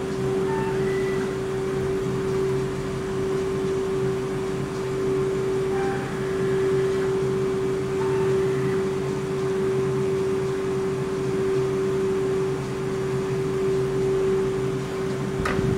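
BKN-S82 soft-serve ice cream machine running while it dispenses, a steady hum from its compressors and motors with one strong held tone. A single sharp click comes near the end.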